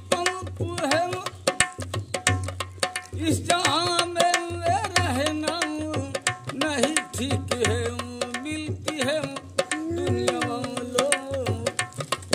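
Dholak played by hand in a quick rhythm of sharp strokes and deep booming bass strokes, under a man's voice singing a folk song with long, bending notes.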